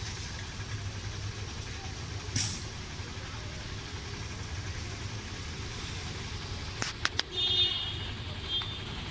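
Outdoor ambience at a railway station forecourt: a steady low hum, with a short rush of noise about two seconds in, a few sharp clicks around seven seconds in and a brief high tone just after them.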